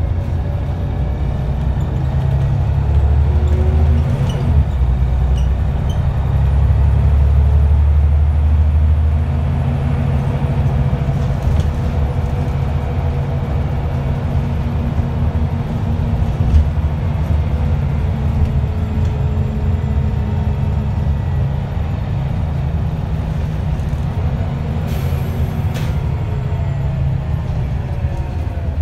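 Wright Solar-bodied Scania single-deck bus running along the road, heard from inside the saloon: a steady low engine and road rumble with engine tones that shift slowly in pitch. There is a brief hiss near the end.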